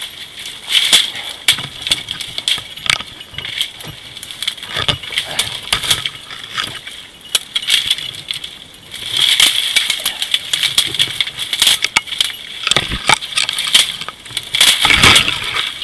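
Dry cane stalks rustling and snapping as someone pushes through a dense reed bed: irregular sharp cracks over a continuous rustle, with some light clinking. There is a denser run of cracking about three-quarters of the way through.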